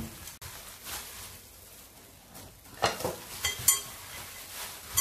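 Hands in thin plastic gloves kneading raw minced-beef mixture in a glass bowl: rustling of the plastic gloves and squishing of the meat in short bursts, starting about three seconds in after a quieter stretch.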